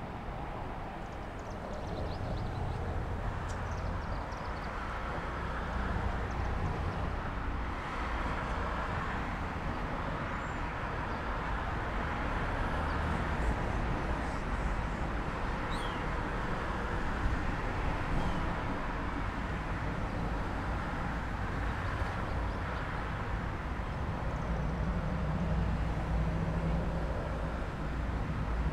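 Steady low rumble and hiss of background ambience, with a few faint high chirps scattered through it.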